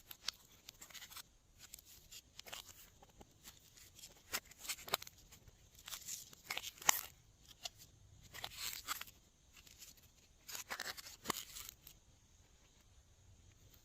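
Glossy slime being squished and stretched by hand, giving irregular bunches of sticky crackling clicks and squelches, loudest about halfway through.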